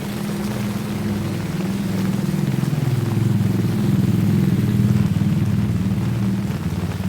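A motor vehicle's engine running at low revs, growing louder to a peak about five seconds in and then fading a little, over steady heavy rain.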